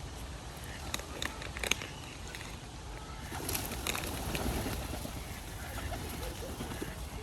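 Pigeons cooing while being fed, with a few sharp clicks about a second in and again around three and a half to four seconds in, over a steady outdoor background.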